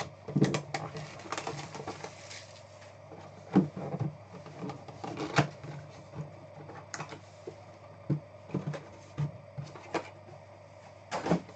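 A cardboard trading-card hobby box being handled and opened: its lid lifted off and the small inner box taken out and set down on the mat, giving scattered taps, scrapes and rustles of cardboard.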